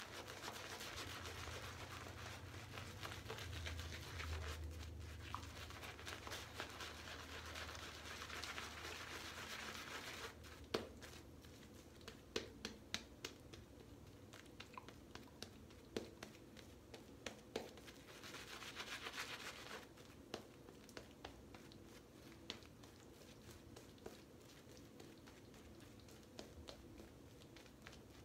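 Shaving brush working lather onto the face and beard, a faint crackling swish. The swishing runs steadily for about ten seconds, then gives way to scattered small clicks, with another short stretch of swishing about two-thirds of the way through.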